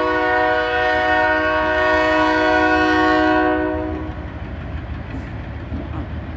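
Locomotive horn sounding one long chord of several steady tones, which stops about four seconds in, leaving the low, steady rumble of the train crossing.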